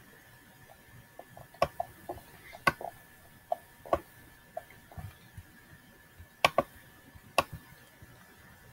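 Irregular clicking from working the computer's input devices: five sharp clicks with many softer ticks between them, over a faint steady high-pitched whine.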